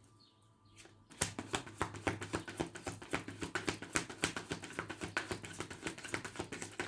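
A tarot deck being shuffled by hand: a rapid, uneven run of light card clicks and flaps, starting about a second in.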